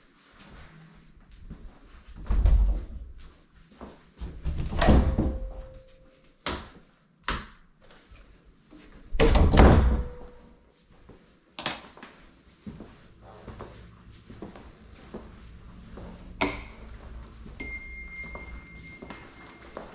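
Three heavy, dull thumps with sharper knocks and clicks between them.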